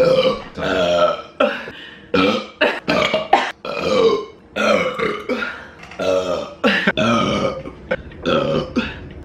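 A woman burping over and over, a rapid string of about a dozen short pitched belches one after another.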